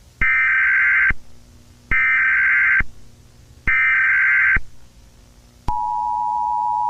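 Emergency Alert System SAME header: three short, buzzy data-tone bursts, each just under a second long and about a second apart. Near the end these give way to the steady two-tone EAS attention signal.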